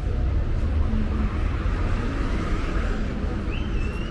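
City street traffic: a steady low rumble of vehicles, with one passing by about halfway through. A thin, high, steady whine begins near the end.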